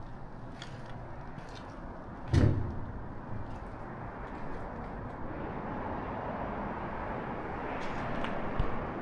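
A single heavy thump about two and a half seconds in, over steady background noise with scattered small clicks.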